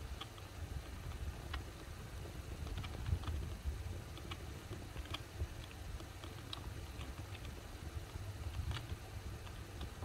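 Keys being typed on a backlit computer keyboard: irregular, scattered clicks over a low rumble.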